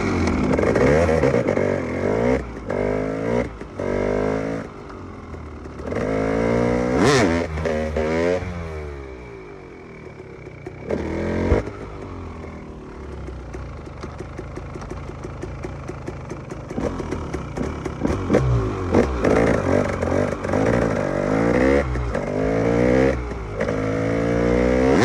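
KTM EXC 300 two-stroke enduro engine being ridden hard, revving in repeated bursts with the pitch climbing and dropping as the throttle opens and closes. About halfway through it drops to low revs with a rapid crackle, then revs up in bursts again, with a couple of sharp knocks along the way.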